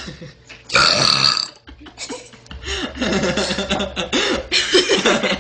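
A small girl's loud burp about a second in, lasting under a second. From about two seconds in it is followed by a longer run of wavering voice sounds that rise and fall in pitch.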